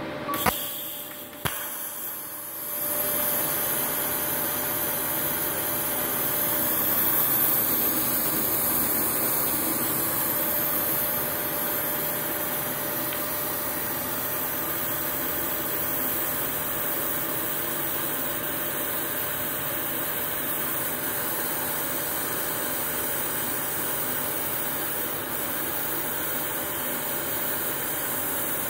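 Two sharp clicks, then a TIG welding arc on 6 mm steel strikes and burns with a steady hiss as the automatic welding carriage carries the torch along the joint.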